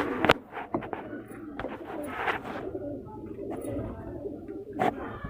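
Sherazi pigeons cooing in a loft, with a few sharp knocks, the loudest just after the start.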